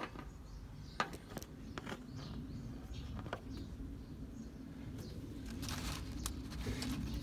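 A phone set down with a sharp knock, then a few light clicks and a brief rustle as a screw-type valve spring compressor is worked on a small-block Chevy valve spring, over a low steady hum.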